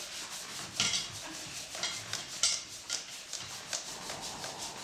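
Short scratchy rubbing strokes at irregular intervals, about six of them, from a hand-held object worked over a cloth garment on a table.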